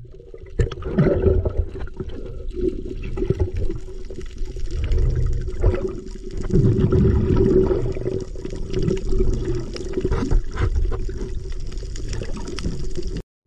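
Water sloshing and gurgling against the camera, muffled, over a steady low hum. It cuts off suddenly near the end.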